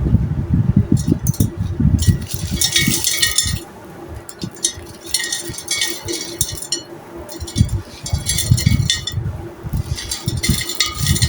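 Dry, stone-textured clay chunks crumbling and crunching in the hands, with clinking as hard pieces fall, in four spells of crackling a couple of seconds apart.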